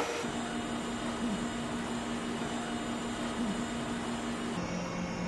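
Steady hum of an industrial sewing machine's motor idling, with no stitching. The hum drops slightly in pitch near the end.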